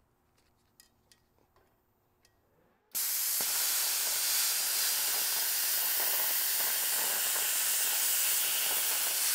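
Harbor Freight Titanium 65 amp plasma cutter, turned up to 65 amps, cutting 3/16-inch steel C channel. After about three seconds of near quiet with a few faint clicks, the arc strikes suddenly and gives a loud, steady hiss of plasma and air blowing through the metal.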